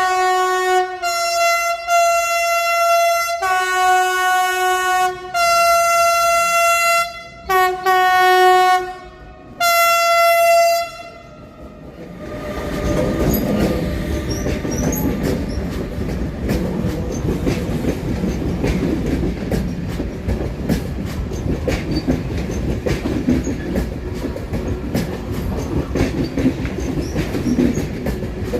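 Train horn sounding a series of about six long, loud blasts, a lower second tone joining on some of them. After that the train rolls in with a steady rumble and wheels clicking over the rail joints.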